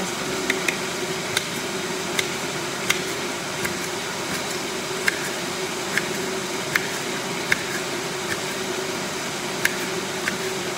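Kitchen knife slicing a green chili pepper into rings on a cutting board: about a dozen sharp knocks of the blade striking the board, unevenly spaced, over a steady background hum.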